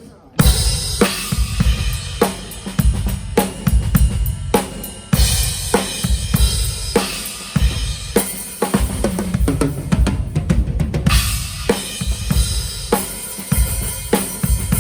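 Yamaha Maple Custom Absolute drum kit with Zildjian cymbals played as a whole, kick, snare, toms and cymbals together in a continuous groove: the full-kit pass of a sound check. It comes in with a sudden loud hit just after the start.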